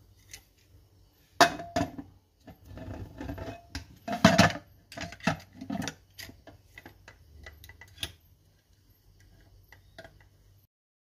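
Aluminium pressure cooker lid being fitted and locked shut: a run of sharp metal clanks and scrapes, the loudest about four seconds in, then a few lighter clicks from the handle.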